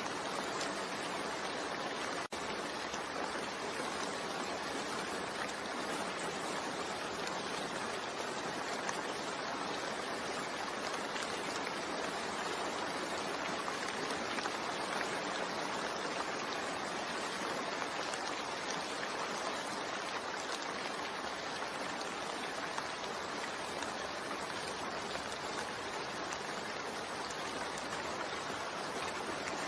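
Steady recorded rain, an even hiss of falling rain, with a momentary drop-out about two seconds in.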